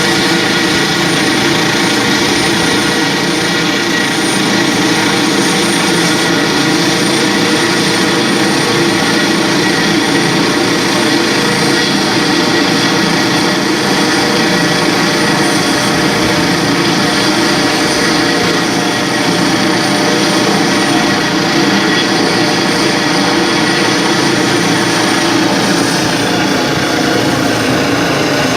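Helicopter turbine and rotor running steadily and loud, with a high steady whine over a dense engine drone.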